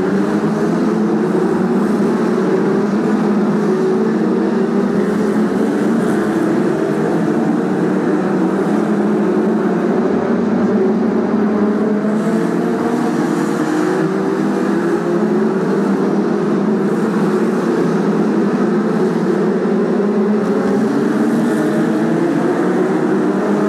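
A pack of BriSCA F2 stock cars racing, many engines running loudly together, their pitch rising and falling and overlapping as the cars go round the oval.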